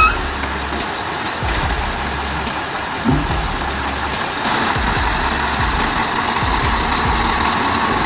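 Heavy log truck's engine running steadily under load.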